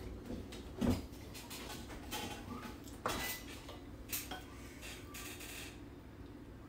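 Tableware at a hot-pot meal: bowls, chopsticks and a ladle knocking against dishes and the steel pot, a few separate clinks and knocks.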